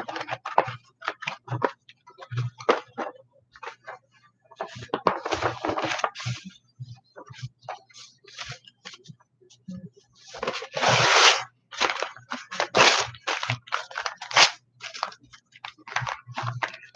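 Paper documents being rustled and shuffled through by hand, with many light knocks and clicks of handling on a desk; the longest, loudest rustle comes about ten seconds in.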